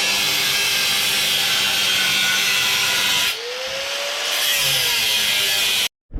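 Power cutting tool running steadily as it cuts the end off a metal bar. A little past halfway the sound drops in level and a tone rises and then falls; the tool stops abruptly near the end.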